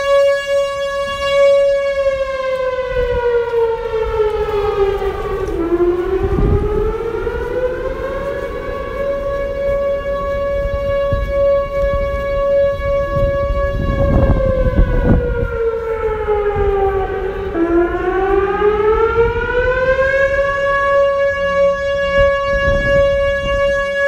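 Whelen Vortex R4 electronic outdoor warning siren sounding in a test. Its steady tone falls in pitch and rises back twice, at about 4 seconds and again at about 16 seconds, then holds steady.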